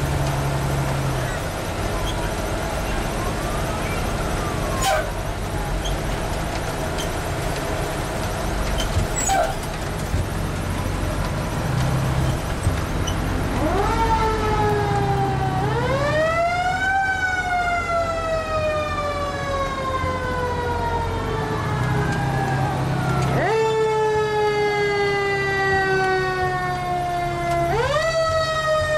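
Fire truck siren sounding from about halfway through. Each wail rises quickly and then falls slowly, four times, over the low steady running of the fire truck's engine.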